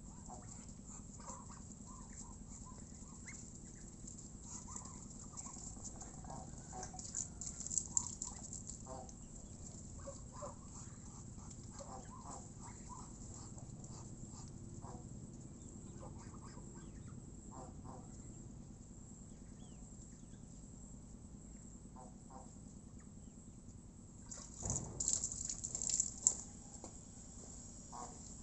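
A flock of domestic geese and Muscovy ducks foraging for food, with scattered short, soft pecking, dabbling and murmuring sounds from their bills. There are two louder flurries of noise from the birds, one about a quarter of the way in and a longer one near the end.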